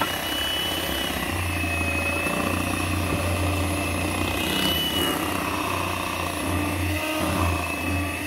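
Electric hand mixer running steadily, its beaters churning thick cake batter in a glass bowl. The motor's whine wavers slightly in pitch as the beaters work through the batter.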